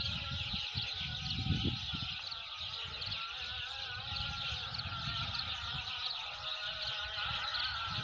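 A large flock of sparrows chirping continuously, many overlapping calls at once.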